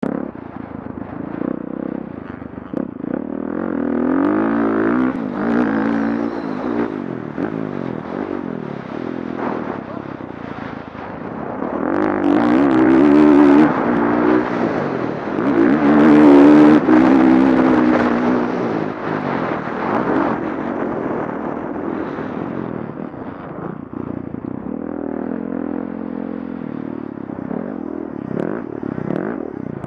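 Dirt bike engine heard close up from the rider's onboard camera, its pitch rising and falling again and again as the throttle is worked and the gears change around the track. It is loudest around the middle.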